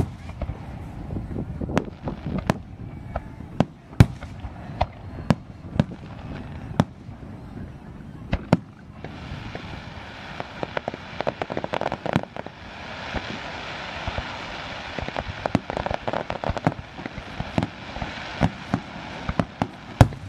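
Aerial fireworks shells bursting one after another, with many sharp bangs. About nine seconds in, a dense crackling sets in under the bangs and runs on.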